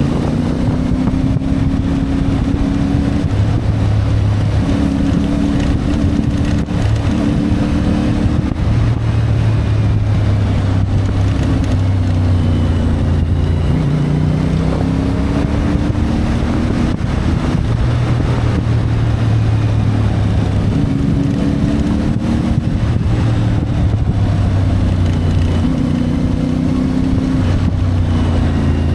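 CFMoto 450MT motorcycle's parallel-twin engine running under way. The engine note holds steady for a few seconds at a time, then steps and glides up and down several times as the throttle and gears change. Wind noise on the microphone runs underneath.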